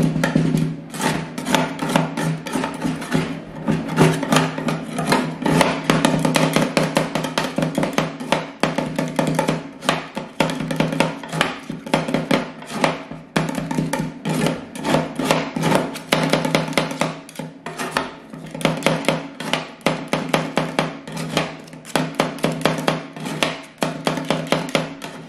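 Two steel spatulas chopping and scraping ice cream mixture on the frozen steel plate of a rolled-ice-cream cold-plate machine: rapid, uneven clacks of metal on metal, several strokes a second, with scraping between them.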